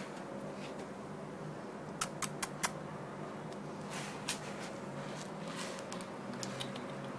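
Steady room noise with a faint hum, broken by a quick run of four sharp clicks about two seconds in and two more about four seconds in.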